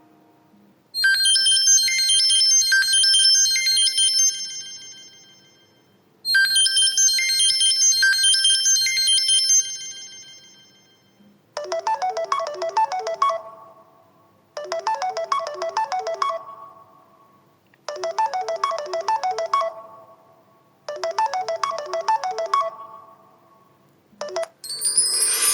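Samsung Galaxy Feel built-in phone tones playing one after another. A bright, high chiming melody starts about a second in and plays twice. From about halfway, a different, lower melodic tone repeats every three seconds or so, and a third tone starts at the very end.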